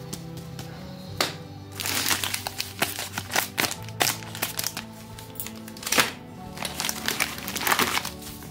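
Crinkling of plastic chocolate-bar wrappers as the bars are picked up and handled, in irregular crackly bursts that are loudest in the middle and near the end, over steady background music.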